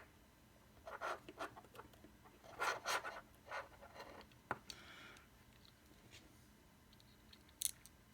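Small plastic and metal parts of a box vape mod being handled and fitted together by hand: a string of short scratches and rubs, then a sharp little click about four and a half seconds in and another near the end.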